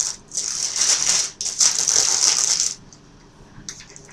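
Loud rustling and scraping handling noise in two stretches, stopping about three-quarters of the way through.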